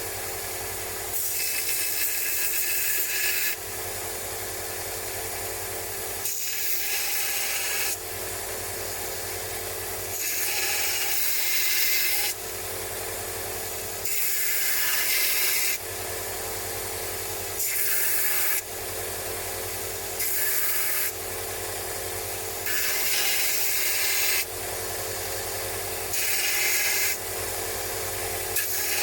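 A power tool's motor running steadily while a metal wrench is pressed against its spinning wheel or belt in repeated strokes of one to three seconds, each contact adding a loud scratchy noise over the hum; the rust and old finish are being abraded off the wrench.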